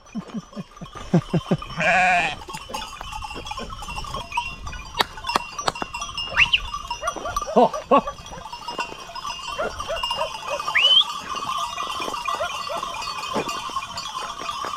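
Flock of sheep bleating, with many short calls overlapping, while the bells on their necks clank and jingle as they move; a louder bleat stands out about two seconds in.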